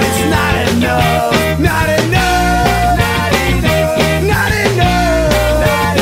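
Ska-punk band recording: a full band with drums on a steady beat, a bass line and a sustained melody line on top.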